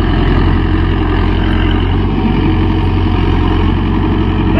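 Mahindra Yuvo 585 Tech Plus 4WD tractor's four-cylinder diesel engine running steadily under load while pulling a five-tine cultivator through the soil.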